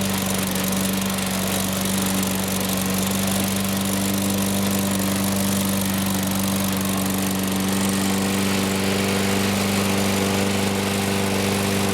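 Toro Recycler Model 20016 lawn mower engine running steadily at a constant speed, running well after its cold start.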